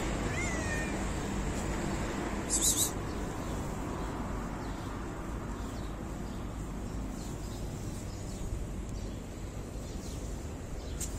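Domestic cat meowing, a short gliding call near the start, over a steady low background rumble. A brief rustling noise comes about two and a half seconds in.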